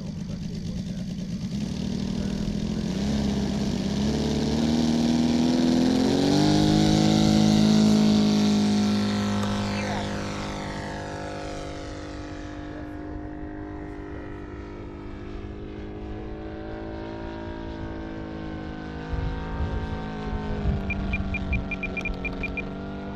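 Saito FG-60R3 three-cylinder four-stroke gasoline radial engine of a giant-scale P-47 Thunderbolt RC model throttling up for takeoff. The engine note rises and grows loud, then drops in pitch and fades as the plane climbs away, and runs on steadily in the distance. A short string of high beeps comes near the end.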